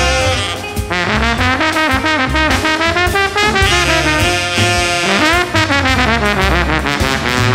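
Background jazz music with brass horns playing melody lines over a bass line.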